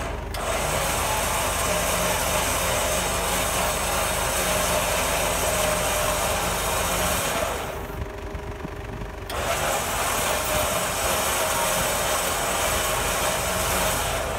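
Vehicle winch reeling in its cable under load, hauling a loaded wood sled uphill, with the car's engine running to power it. The winch sound drops out for about a second just past the middle while the engine carries on.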